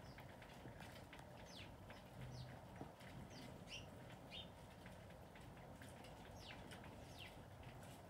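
Northern cardinal giving faint, sharp chip notes, each a short high note sliding quickly down in pitch, about ten at uneven intervals. A steady low background rumble runs underneath.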